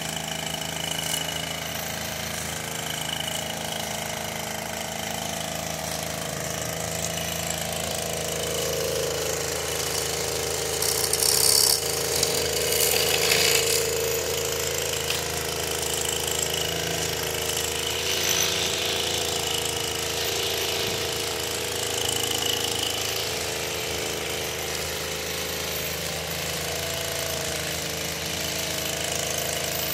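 Gas-powered string trimmer running steadily, its small engine humming while the line cuts grass. About halfway through it gets louder and hissier for a few seconds.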